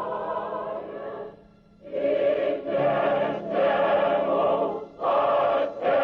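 Operatic choir singing slow, sustained chords in short phrases. A held sung note fades out about a second and a half in, and the choir enters half a second later.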